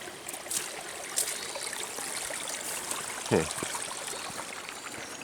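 A small woodland brook trickling and running steadily.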